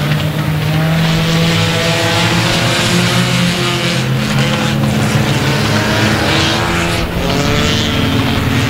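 A pack of front-wheel-drive ecostock cars racing on a dirt oval, several engines at high revs at once. Their overlapping engine notes rise and fall as the cars pass.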